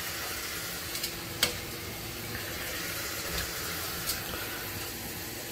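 Kitchen tap running steadily into a stainless steel sink, with a few light clicks about a second in, half a second later, and again near the end.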